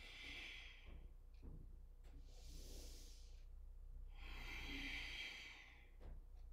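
A woman breathing audibly while holding a plank: three faint breaths, about two seconds apart, each lasting about a second. This is the steady controlled breathing kept up under the effort of a plank hold.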